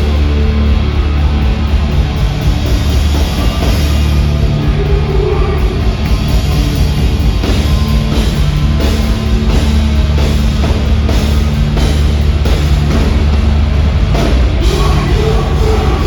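Metalcore band playing live at full volume: heavily distorted guitars and bass over fast, hard-hit drums, in a dense wall of sound.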